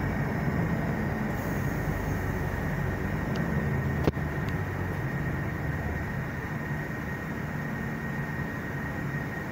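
Interior ride noise of a Mercedes-Benz Citaro G articulated bus under way: a steady low drone of engine and running gear with a faint, steady high whine. A single sharp knock comes about four seconds in.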